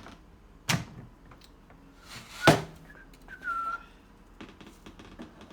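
Two sharp knocks of an air fryer's cooking tray and door being handled, the second the louder, then a brief high squeak a little later.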